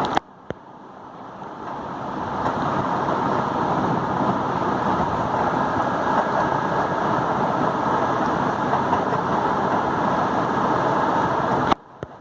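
Steady rushing noise with no pitch, swelling in over the first two seconds, holding even, then cutting off abruptly near the end.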